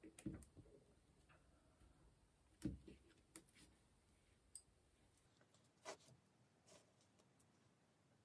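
Near silence, with a few faint, scattered metal clicks as the steel sprockets and pawl parts of a Shimano FFS rear sprocket cluster are handled and fitted by hand.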